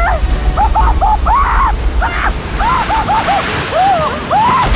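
A young man yelling in panic: a quick run of short cries, each rising and falling in pitch, over a deep steady rumble.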